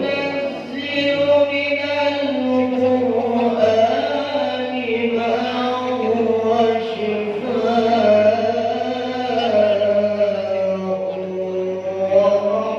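A young male qari reciting the Quran in a melodic chanting style, drawing out long held notes with slow, ornamented turns in pitch.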